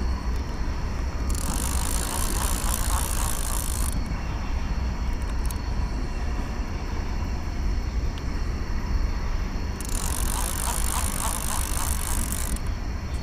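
Okuma Classic XT level-wind fishing reel being cranked against a hooked catfish, its gears whirring in two spells of a few seconds, about a second in and again near the end. A steady low rumble runs underneath.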